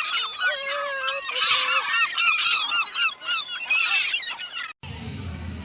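Many birds calling at once, a dense run of quick, overlapping calls, broken off by a cut about five seconds in to a low hum.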